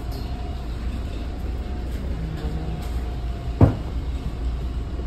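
Toronto Line 2 subway car standing at the platform with its doors open: a steady low hum with a thin steady tone over it. A single thump about three and a half seconds in is the loudest sound.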